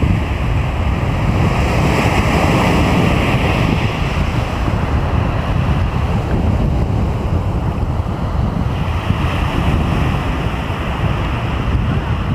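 Sea surf washing onto the shore, with wind buffeting the microphone as a heavy low rumble. The wash swells and eases, loudest about two seconds in.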